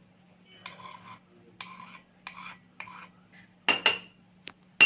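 A spoon scraping boiled lemon pulp through a metal tea strainer in four short strokes, then two sharp clicks and a loud ringing clink near the end as metal knocks against the cup.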